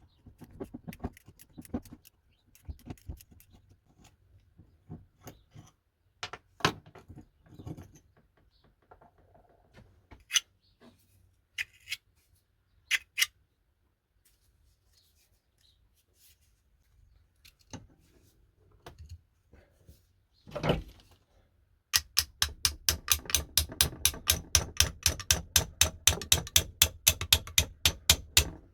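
Old steel spanners being handled and worked on a bench, with scattered clicks and knocks. After about twenty-two seconds comes a fast, even run of sharp metallic strikes, about six a second.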